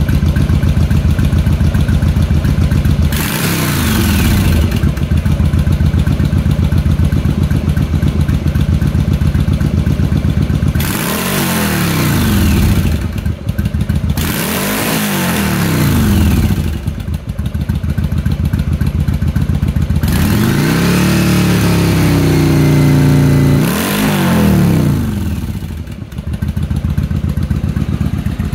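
Yamaha Virago 1100's air-cooled V-twin idling through aftermarket Cobra exhaust pipes, blipped up and let fall back to idle several times. One rev in the second half is held for about three seconds before dropping.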